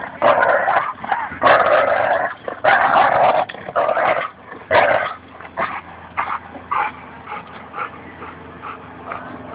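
Labrador retriever play-growling during a tug-of-war over a rope toy, in long rough bursts for about five seconds, then in shorter, quieter ones.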